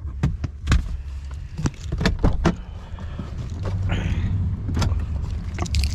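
Knocks, clicks and clothing rustle as a person shifts about in a parked car and gets out of it, over a steady low rumble.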